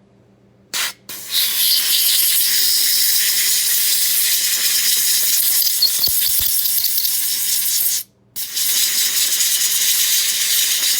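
Pressurised spray hissing: a short burst, then a long spray of about six seconds, a brief pause, and another spray of about three seconds.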